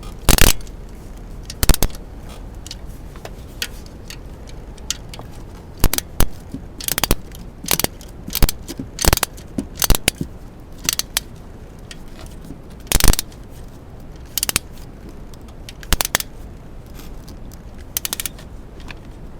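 Hand tools on the engine's metal bolts: a small fine-tooth ratchet clicking in short runs and a wrench clinking, in irregular bursts as the ignition coil's mounting bolts are tightened.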